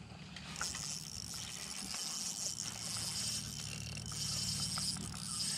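Fishing reel working against a hooked fish: a steady high, grainy whir begins about half a second in, with a few sharp ticks. It fits the reel being cranked while its drag gives line, a drag the angler finds set too loose.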